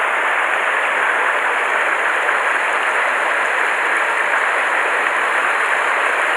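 Mountain stream water rushing over rocks close by, a steady even rush with no breaks.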